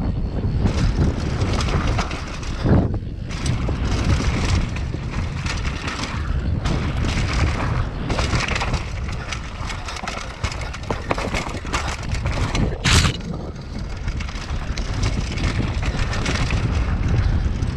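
Mountain bike descending a dirt and gravel trail: wind buffeting the microphone over tyres rolling on dirt and stones and a steady clatter from the bike. Two sharper knocks stand out, about three seconds in and about thirteen seconds in.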